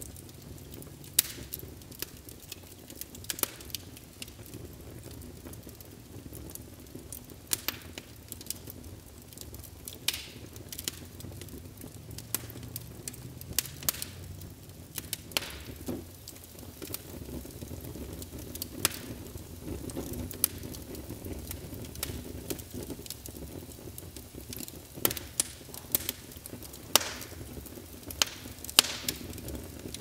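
Fire crackling: irregular sharp pops and snaps, a few of them much louder, over a steady low rumble of the flames.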